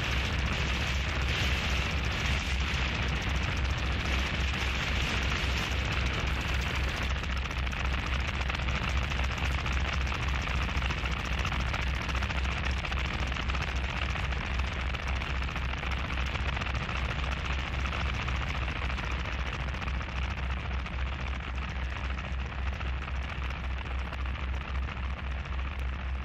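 Harsh noise music: a dense wall of distorted static and crackle over a heavy, rapidly pulsing low rumble, thinning and getting a little quieter near the end.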